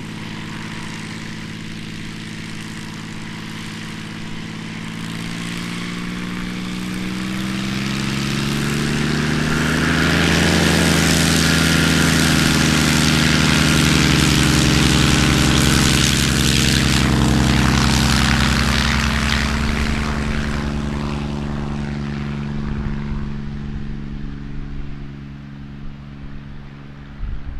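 Dornier Do 27 single-engine propeller plane with its engine running. The engine note rises in pitch and grows louder about a third of the way in, as on a take-off run, stays loudest through the middle, then fades steadily as the plane goes away.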